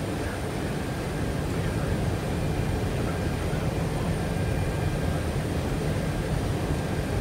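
Cockpit noise of a C-17 Globemaster in flight: a steady rush of airflow and the drone of its four turbofan engines, heaviest in the low range. It grows a little louder about two seconds in, with a faint steady high whine over it.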